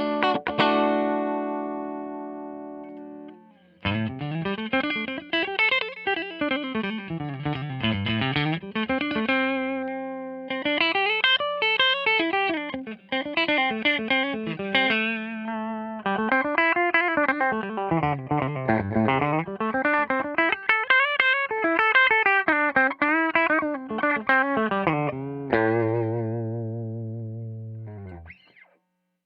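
1994 Hamer Chaparral electric guitar through a Tone King Imperial MK2 amp on a clean tone pushed slightly hot. A chord rings and fades, then after a short gap come fast single-note runs climbing up and down the neck, ending on a held chord that fades out near the end.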